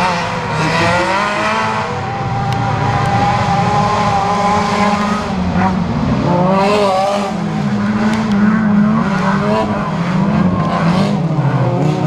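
Race car engines on a dirt track, several at once, revving up and down over and over as the drivers accelerate and shift gears.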